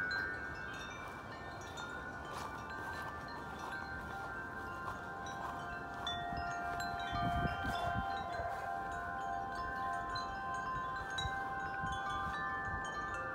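Wind chimes hanging in a tree, ringing steadily in the wind: many overlapping, long-sustained metal tones, with wind rumbling underneath.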